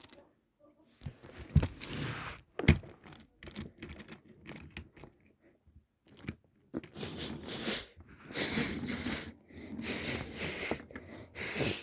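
Packaging being handled, with crinkling and tearing of plastic and cardboard. There are two sharp knocks a second or so apart early on, then longer stretches of crackling near the end.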